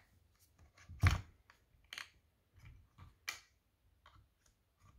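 Handling clicks and knocks from a JBC soldering station and its handpiece cable connector being worked at the station, with one sharp knock about a second in and several lighter clicks after it.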